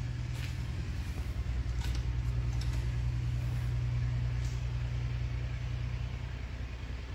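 Steady low drone of a running engine, with a few faint ticks over it.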